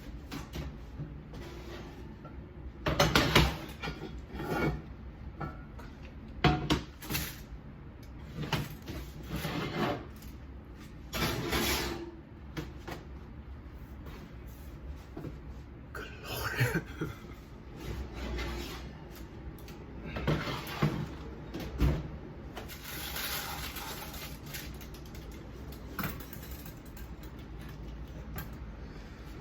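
Kitchen handling sounds: scattered knocks, clacks and short scrapes, like cupboard doors and dishes being moved.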